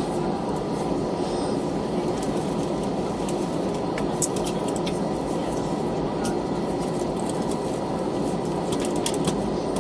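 Cabin noise inside an Airbus A320-214 with its CFM56 engines at idle before takeoff: a steady hum with faint steady tones and scattered light clicks and rattles.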